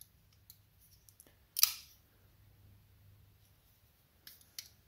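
Small metallic clicks from a Spyderco Paramilitary 2 folding knife being worked while its action is tuned, its stop pin screws just loosened to cure slight binding. There is one sharper click with a short ring about a second and a half in, and two faint clicks near the end.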